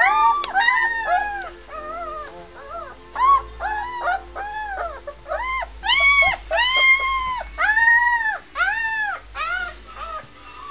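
Three-week-old White Swiss Shepherd puppies whining and squealing, a run of high cries one after another, each rising then falling in pitch, loudest about a third of the way in and again in the second half.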